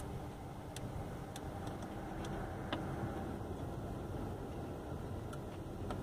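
Scattered light clicks from an Opel Vectra's climate-control temperature knob being pressed and turned, over a steady low hum in the car cabin.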